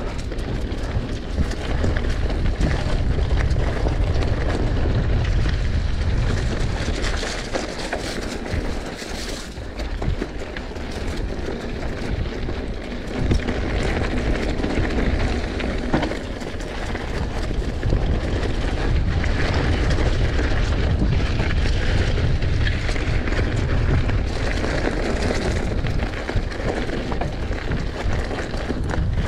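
Wind buffeting a Garmin VIRB action camera's microphone on a mountain-bike singletrack descent, with knobby tyres rolling over the dirt trail and frequent knocks as the bike rattles over bumps. The low rumble eases for a few seconds in the middle, then returns.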